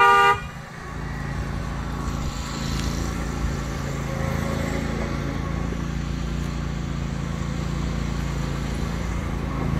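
A car horn's final short honk, then an engine running steadily at low revs.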